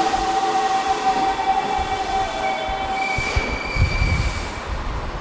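Toei 5300 series subway train braking to a stop, its GTO-VVVF inverter whining in steady tones that shift in pitch and cut out about four and a half seconds in, with a low rumble just before.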